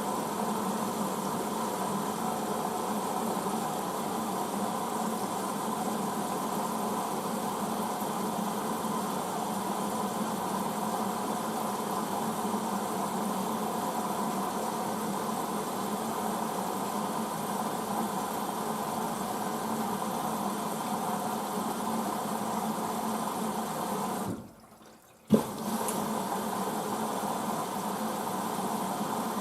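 Hoover DYN9144D3X washing machine taking in water at the start of its first rinse: a steady rush of water with a steady hum. About 24 seconds in the sound cuts out for about a second and ends with a sharp click, then the filling resumes.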